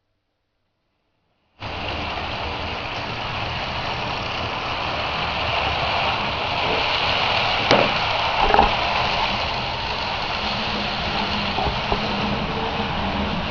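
Model train running on the layout: a steady mechanical hum and rumble that starts suddenly, with two sharp clicks about halfway through.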